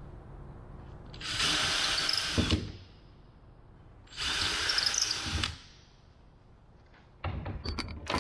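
Cordless drill boring into the wooden tail frame in two steady runs of about a second and a half each. Near the end comes a rattle of sharp knocks and clatters from wooden pieces being handled.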